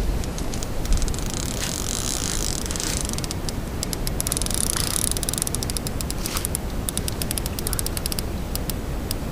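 Spinning reel on a carp rod clicking rapidly and unevenly for several seconds, with wind rumbling on the microphone.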